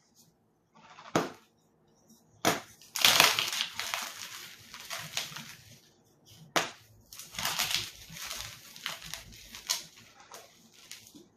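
Something brittle being crushed close up: sharp cracks about a second in, at two and a half seconds and again past the middle, each followed by runs of dense crackling and crunching.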